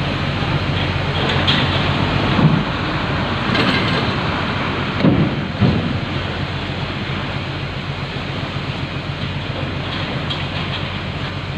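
Car ferry's engines running with a steady low drone under a continuous rushing noise, with a few brief louder sounds about two and a half and five to six seconds in.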